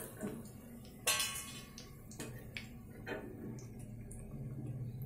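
Batter-coated boiled potatoes deep-frying in hot oil in a kadhai, a faint steady sizzle, with a few sharp clinks of a metal slotted spatula against the pan; the loudest clink comes about a second in.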